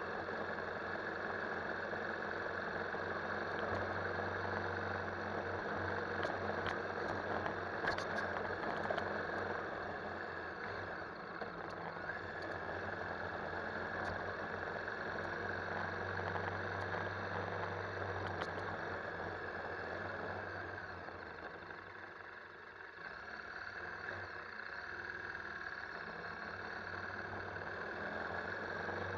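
KTM 1190 Adventure's V-twin engine running steadily while the motorcycle is ridden. The sound eases off briefly about three quarters of the way through.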